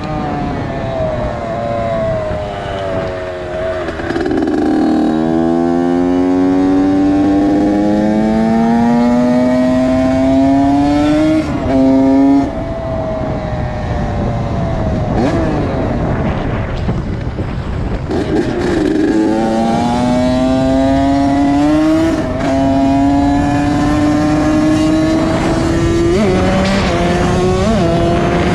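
Honda CR80's 80cc two-stroke single engine revving hard as the bike is ridden. The pitch climbs in two long pulls, the first starting about five seconds in and the second about nineteen seconds in, stepping down at gear changes and dropping back between the pulls.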